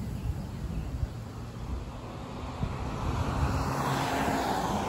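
Low rumble of distant thunder, with a rushing noise that swells about three seconds in and eases near the end.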